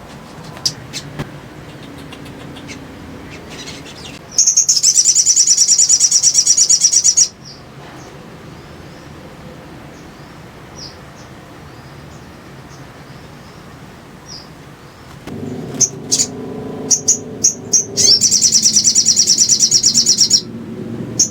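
Sogok ontong sunbird (sogon) singing: two long, loud, rapid high-pitched trills of about three and two and a half seconds, with scattered short sharp chirps between and before them.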